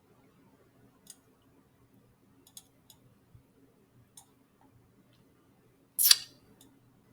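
Computer mouse clicking: a few faint, scattered clicks, then one much louder click about six seconds in. A faint low hum runs underneath.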